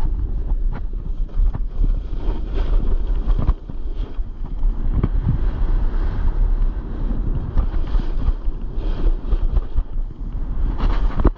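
Wind buffeting the GoPro's microphone while a snowboard slides and scrapes over firm snow, with short irregular scrapes and knocks as the board carves turns.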